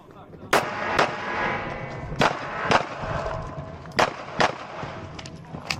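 Glock 26 9mm subcompact pistol firing at a practical-shooting stage, seven shots in about five seconds: three pairs with about half a second between the shots of each pair, and a single shot near the end, each shot leaving a short echo.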